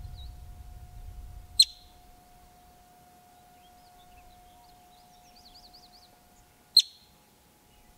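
Yellow-bellied marmot giving its alarm call: two single sharp, high whistled chirps about five seconds apart.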